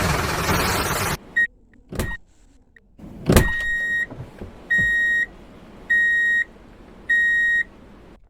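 A toy vehicle's electronic sound unit: a noisy engine-like sound cuts off about a second in, two sharp clicks follow, then four steady high beeps, each about half a second long and a little over a second apart.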